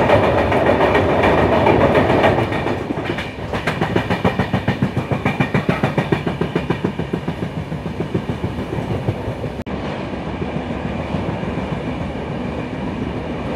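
Passenger express train running, heard on board: a loud rushing noise for the first couple of seconds, then the rhythmic clickety-clack of the coach wheels over rail joints. After a brief break about ten seconds in, it settles into a steadier rumble.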